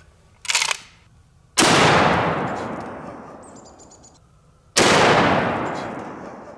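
Two loud .458 Lott rifle shots about three seconds apart, each trailing off in a long echo, with a short handling noise about half a second before the first.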